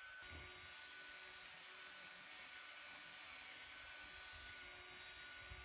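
Near silence: a faint steady hiss with a thin steady tone, the room tone of the narration track.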